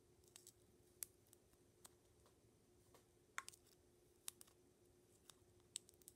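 Faint, sharp ticks and crinkles of fingertips and nails picking at and peeling die-cut washi tape off its roll, about eight irregular clicks.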